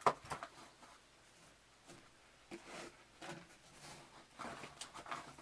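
Unboxing handling noise as the keytar's power adapter and cable are taken out of the packaging: a sharp click at the very start, then scattered rustling and light knocks in the second half.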